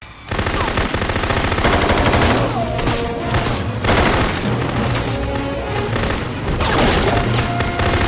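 AA-12 fully automatic shotgun firing in rapid, sustained bursts, starting about a quarter second in, with a film score playing underneath.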